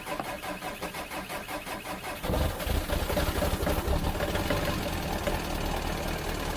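Oil pump running under heavy load as it pushes thick new gear oil into the gearbox, labouring with a fast, even, diesel-like chugging. About two seconds in it gets louder and rougher.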